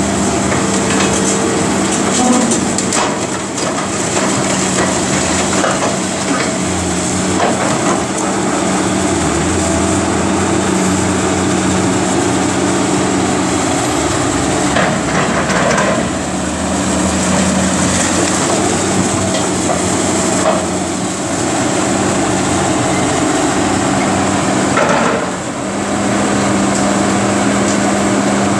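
Caterpillar 330B excavator's diesel engine running steadily under load as its demolition grapple tears at a brick wall, with scattered crunches and cracks of breaking masonry and falling rubble, the loudest about 2, 7, 15 and 25 seconds in.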